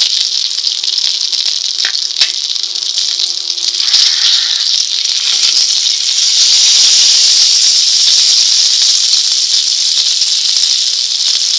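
Rice-flour-coated pomfret sizzling in hot oil on a tawa: a steady crackling hiss that grows louder about four seconds in, with a couple of faint clicks about two seconds in.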